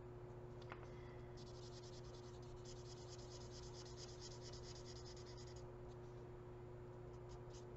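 Faint scratching of an alcohol marker's felt nib rubbed over cardstock in quick, short strokes, running steadily for a few seconds and stopping about two-thirds through, with a few more strokes near the end.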